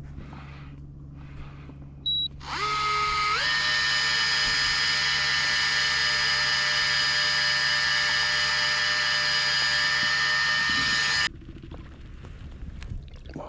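Electric fishing reel winding in line. A short beep comes first, then the motor whine starts, steps up in pitch twice within about a second as the speed is raised, runs steady for about eight seconds, and cuts off suddenly.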